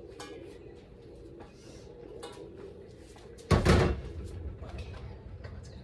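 A single loud knock and clatter about three and a half seconds in, from a wooden box being lifted from the shelf and handled. Light clicks and scuffs come before and after it.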